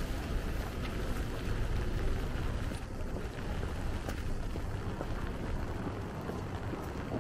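Steady rainy street ambience: an even hiss of rain over a low rumble, with a few faint ticks.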